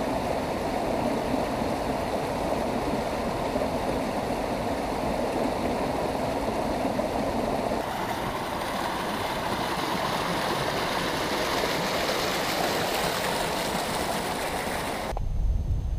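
Mountain creek flowing over rocks, a steady rush of water. About halfway through it turns brighter and hissier as the white water under a footbridge comes in. It cuts off suddenly near the end, leaving a low rumble.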